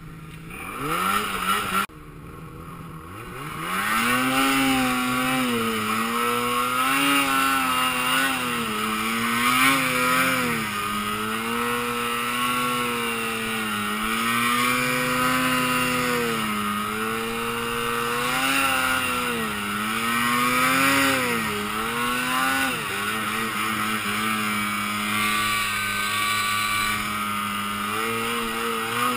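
Snowmobile engine under way, revving up and down over and over with the throttle, with a rush of wind and snow noise. A short loud burst in the first two seconds cuts off, then the engine climbs in pitch and swells repeatedly before running steadier after about 23 seconds.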